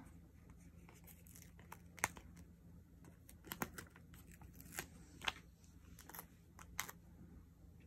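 A large paper planner sticker being peeled slowly off its backing sheet: faint scattered crackles and ticks, a few sharper ones spread through.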